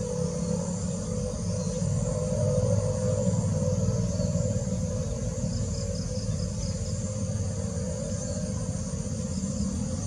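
Steady high-pitched insect chorus over a low, even rumble, with a short run of quick chirps a little past the middle.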